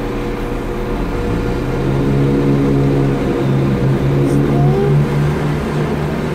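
London Midland Class 172 diesel multiple unit pulling out of the station, its underfloor diesel engine note stepping up in pitch about a second in and holding steady as it accelerates away.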